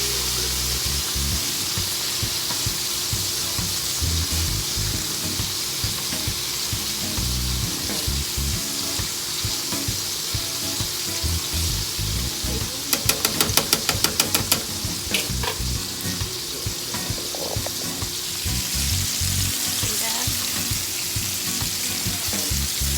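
Flour-coated chicken pieces deep-frying in hot oil, a steady sizzle. About 13 seconds in there is a quick run of about a dozen sharp clicks.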